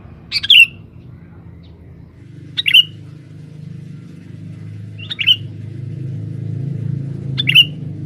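Male sooty-headed bulbul (kutilang) calling: four short calls, evenly spaced about two and a half seconds apart. A low background rumble grows louder toward the end.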